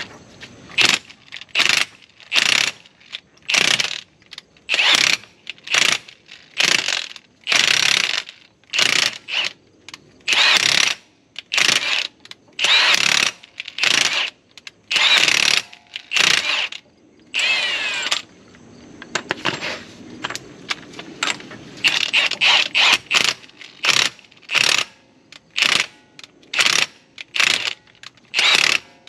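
Hand ratchet worked in repeated strokes, its pawl clicking on each backswing at about one stroke a second, running a new axle nut down damaged, oiled axle threads to clean them up. A short squeak comes about eighteen seconds in.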